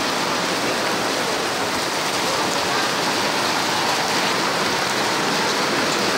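Rain falling steadily, an even dense hiss with no breaks.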